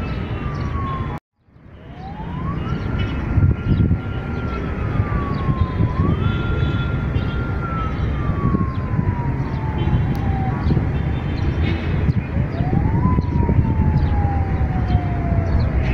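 A siren wailing: a single tone that rises, holds high, then slides slowly down, over and over, above a steady low rumble. The sound drops out completely for a moment about a second in.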